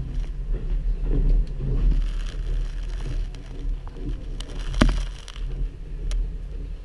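Electric train running slowly over pointwork, heard inside the driver's cab: a steady low rumble with a few sharp clacks as the wheels cross the switch rails.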